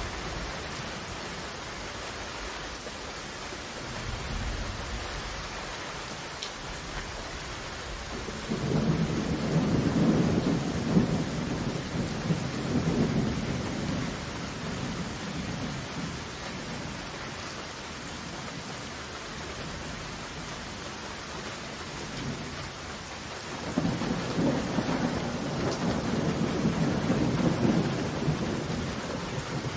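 Heavy rain falling steadily, with two long rolls of thunder: the first about a third of the way in, lasting several seconds, and the second near the end.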